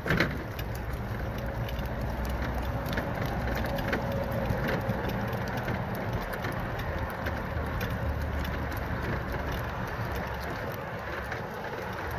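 Electric wheelchair travelling over rough ground: a steady low rumble of the wheels with many small clicks and knocks, and a faint motor whine in the middle.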